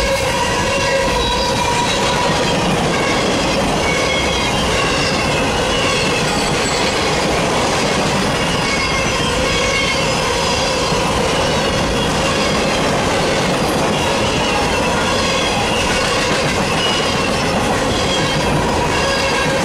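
Mixed freight train's boxcars and hoppers rolling past close by: a steady loud rumble of steel wheels on rail, with thin high wheel-squeal tones running over it.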